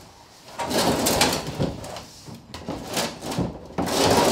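A large curved panel being shifted and dragged against stored items, scraping and rubbing in three bursts of noise.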